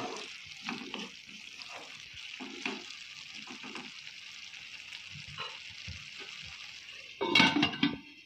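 Diced potatoes and peas sizzling in a wok, with a spatula stirring and scraping through them in strokes during the first few seconds, then a steady sizzle. Near the end comes a louder clatter as a steel lid is brought over the pan.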